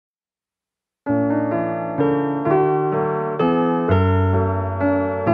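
After about a second of dead silence, piano music begins: chords struck about twice a second, each ringing and fading before the next.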